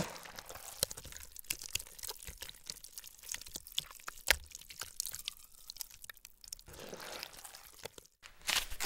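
Foley take of Jello gelatin being squeezed by hand: a steady run of wet squelching and crackling, with one louder wet thud about four seconds in as it is dropped.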